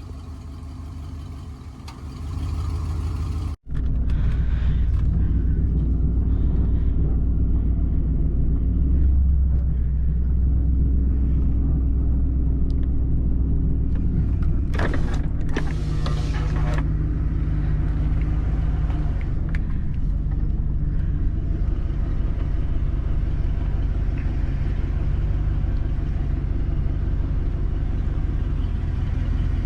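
Truck engine running at low speed while reversing down a boat ramp, a steady low rumble. It cuts out briefly a few seconds in and comes back louder, with a short noisier patch about fifteen seconds in.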